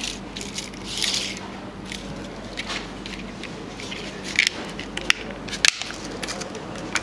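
1 mm fluorocarbon fishing line being pulled off its plastic spool by hand, with light crackles and rustles and a few sharp clicks. A steady low hum runs underneath.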